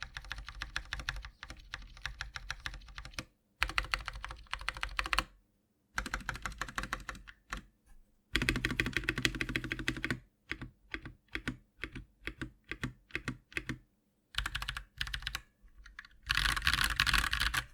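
KT87 mechanical keyboard with FL.CMMK Pink switches being typed on: fast runs of keystrokes in bursts with short pauses between them. Around the middle come slower single key presses at about three a second, and near the end a dense, louder burst of fast typing.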